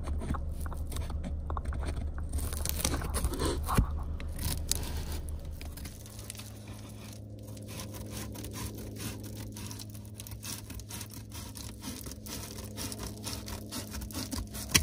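Scissors snipping through Reflectix foil bubble insulation: a long run of short crinkly cuts, with the foil rustling and crunching. A low steady hum joins about six seconds in.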